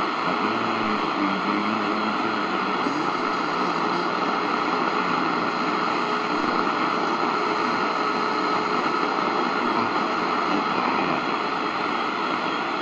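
C.Crane CCRadio SW's speaker giving a steady hiss of shortwave static on the 75-metre amateur band, with a weak, muffled voice signal buried in the noise, as the dial is tuned from 3875 to 3880 kHz and back.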